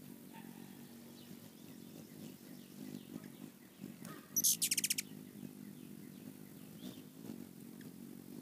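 Hummingbirds' wings humming steadily as they hover close, with a quick, loud burst of high, sharp chittering calls, about six rapid notes, a little past the middle.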